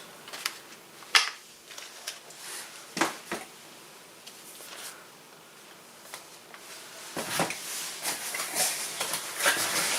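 Handling of trading card packs and their packaging: a few sharp clicks and knocks in the first few seconds, then rustling of wrappers from about seven seconds in.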